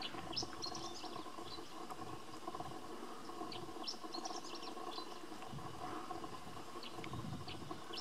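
Male stonechat singing: three short bursts of quick, high notes, one near the start, one around the middle and one near the end. A steady faint low hum runs underneath.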